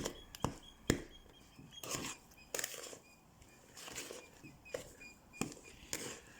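Spoon scraping through stiff cookie dough and knocking against the mixing bowl, in short scrapes and sharp clicks, with a few faint short high chirps.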